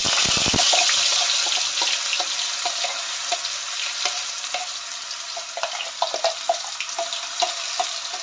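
Curry leaves sizzling in hot oil in an aluminium pan, loudest in the first second, the hiss easing as ground coconut masala paste goes into the oil. Scattered pops and clinks run through it as a spoon scrapes the paste out of a steel grinder jar.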